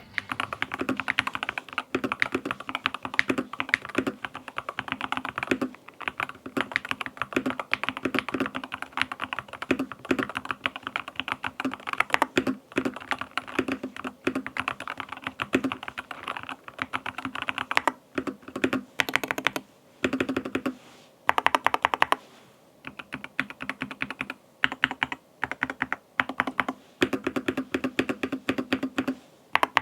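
Typing on a Keychron K2 HE keyboard with linear Hall Effect magnetic switches: a fast, dense run of key presses that breaks into shorter bursts with brief pauses in the second half.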